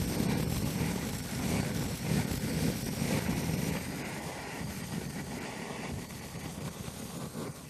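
Hand-held gas cartridge torch blowing its flame into burning wood in a smoker's fire box: a steady rushing roar that eases off a little in the second half.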